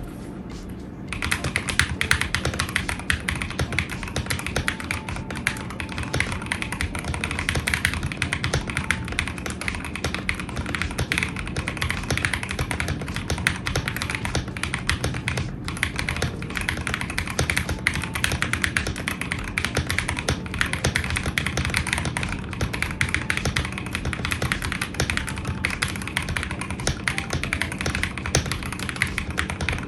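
Fast, continuous typing on a mechanical keyboard fitted with Akko linear switches, dense key clicks and bottom-out clacks starting about a second in.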